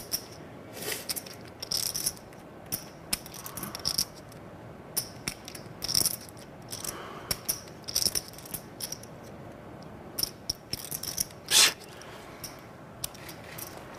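Poker chips clicking and clacking irregularly as players handle and riffle their chip stacks, with one louder clack late on.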